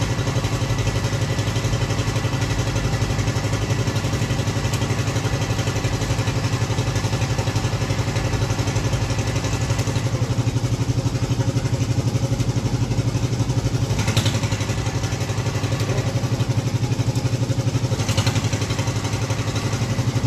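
Bore pile machine's engine running steadily at an even speed while driving its gearbox to wind steel bar into a spiral, with two brief knocks in the second half.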